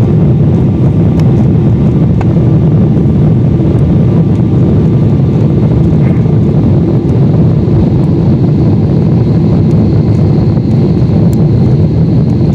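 Steady, loud, deep cabin roar of a Boeing 747-8 on final approach with its flaps extended: engine noise mixed with the rush of air past the airframe. A faint high whine joins about ten seconds in.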